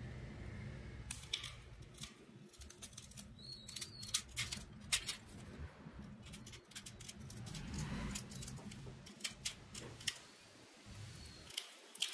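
Tin snips cutting through a used angle-grinder abrasive cutting disc, a run of sharp snips at irregular intervals as the disc is trimmed down into a small round wheel.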